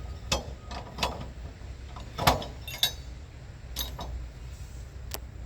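A series of sharp metallic clinks and knocks, about six spread over a few seconds, the loudest a little past two seconds in, over a steady low rumble.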